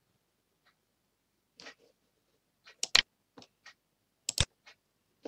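Computer mouse clicking: a scattering of short, sharp clicks, with two louder pairs of clicks about three and four and a half seconds in.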